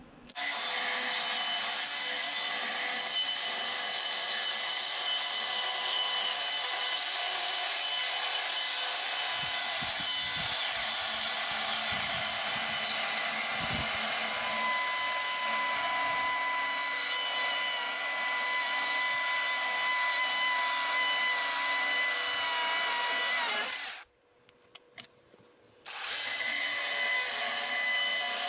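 Chainsaw running steadily while cutting into a wooden board, removing the outer edge material down to the depth of the letters. About 24 seconds in it stops for roughly two seconds, then runs again.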